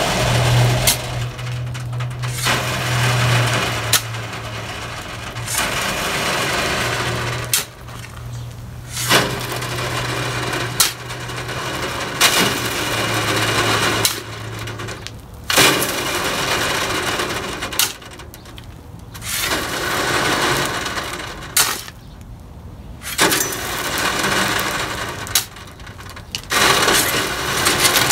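Steel shovel working hard-packed, rocky soil: repeated scraping strokes every few seconds, with sharp clinks as the blade strikes stones. A steady low hum runs under the first half.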